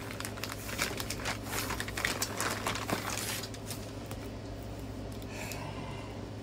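Plastic packaging crinkling and rustling as it is handled, busy for about the first three seconds and then dying down, over a steady low hum.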